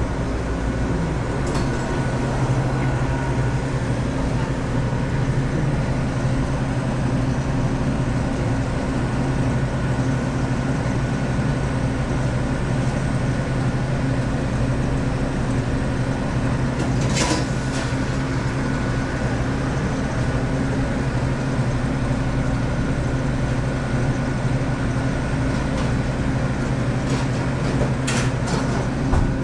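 Commercial refrigeration condensing unit running steadily: a compressor hum with a whir of fan air, broken by a few brief clicks.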